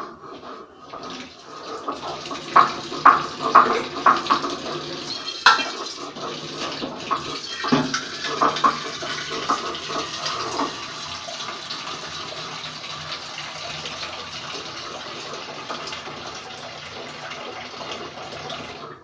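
Wet squelching of hands kneading raw meat with onions and spice paste in an aluminium pressure cooker, in irregular bursts through the first half. A steady hiss runs beneath and cuts off suddenly at the end.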